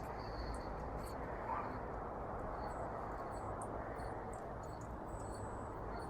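Quiet outdoor background: a steady low rumble of ambient noise with faint, scattered high ticks and brief thin chirps.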